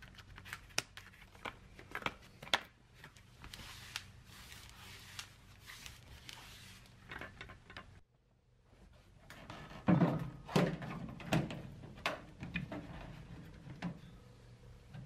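Handling noises from a plastic body trim molding: scattered clicks and light rustles as it is worked on. After a brief drop-out, a run of louder knocks and bumps follows as gloved hands fit the molding against the pickup's rear body panel.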